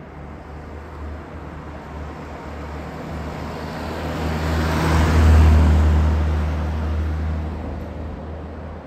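A 1964 Morris Mini 850 with an 848 cc A-series four-cylinder engine and a larger-bore exhaust drives past. Its engine note grows louder as it approaches, peaks about five seconds in as it passes, then fades as it drives away.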